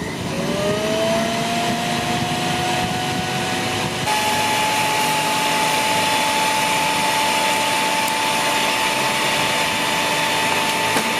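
Snow Joe CJ601E 14-amp electric wood chipper/shredder motor starting up and running: a whine that rises in pitch and levels off, steps up slightly about four seconds in, then holds steady over an even whirring.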